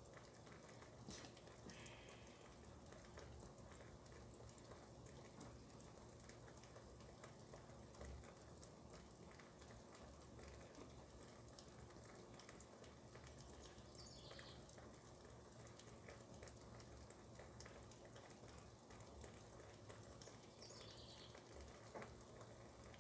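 Near silence with a faint patter of rain, scattered soft drop ticks.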